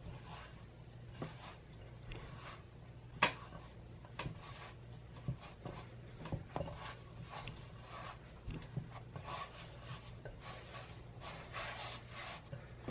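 Hands kneading soft bread dough in a glass bowl: irregular rubbing and squishing of the dough with soft taps against the glass, and one sharper knock about three seconds in.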